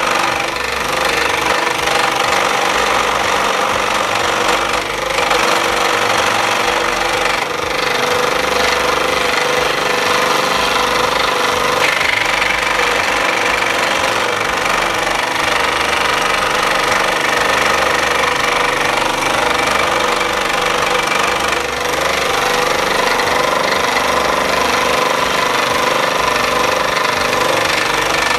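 SIP 16-inch parallel-arm scroll saw with a 90-watt motor running steadily, its blade driving up and down as it cuts through a thick block of wood.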